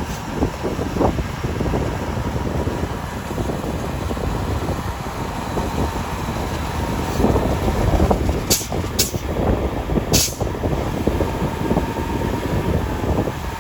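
Heavy snow-removal machinery working: the diesel engines of a rotary snowplow and dump trucks run with a dense, steady rumble and a faint steady whine. Three short, sharp hisses come about eight to ten seconds in.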